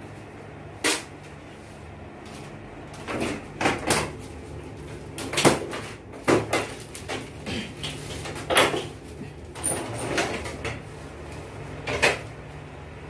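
Hard plastic clicking and knocking as the front panel and cover of a split air conditioner's indoor unit are unclipped and pulled off: about a dozen sharp knocks at uneven intervals, over a low steady hum.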